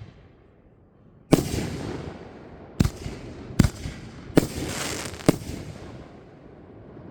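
Fireworks going off: five sharp bangs at uneven gaps, two of them followed by a crackling hiss that fades over about a second.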